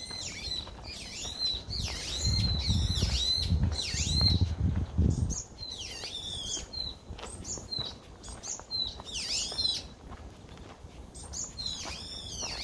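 Songbirds singing, a run of quick chirping calls that sweep up and down in pitch and repeat throughout. A low rumble runs underneath from about two to five seconds in.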